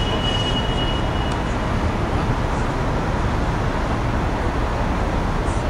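Steady city street traffic noise, a continuous low rumble of passing vehicles, with a faint high steady whine in the first second or so.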